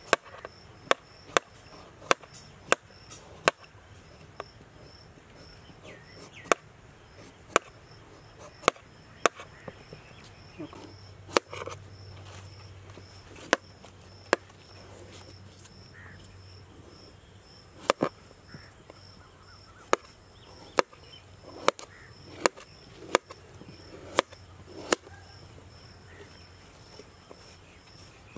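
A potato being peeled with a kitchen knife over a wooden tray: sharp, irregular knocks of the blade and falling peel on the wood. Behind it a cricket chirps in a steady, even pulse.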